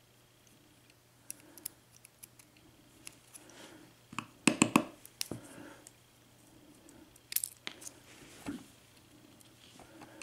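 Small metal clicks and taps of a Lockwood 5-pin lock cylinder being taken apart by hand as its top pins and springs are worked out of the housing, with a quick cluster of sharp clicks about four and a half seconds in.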